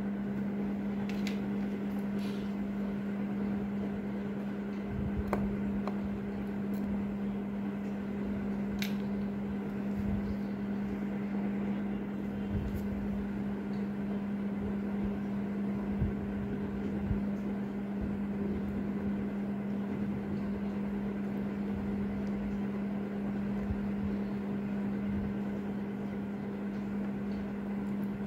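Steady low hum over a background hiss, like a mechanical fan or room equipment running, with a few faint small clicks of steel tweezers on the watch movement.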